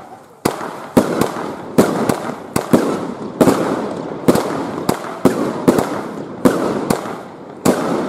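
Pyrofactory Bird Killer F2 salute firework battery firing shot after shot, about two sharp bangs a second at an uneven pace, each trailing off in a crackling hiss.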